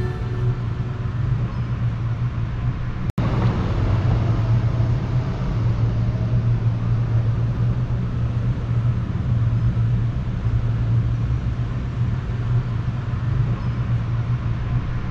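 Steady low rumble and hiss of outdoor noise, like wind and road noise on a handlebar-mounted action camera's microphone while cycling over stone paving, with a momentary dropout about three seconds in.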